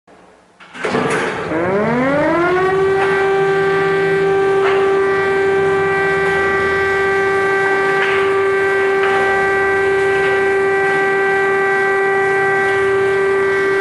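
Civil-defence air-raid siren winding up, its pitch rising over about two seconds, then holding one loud, steady wail.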